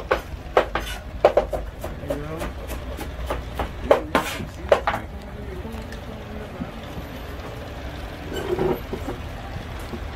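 Knife chopping vegetables on a cutting board: irregular sharp knocks, thickest in the first half, over a low rumble of wind and faint voices.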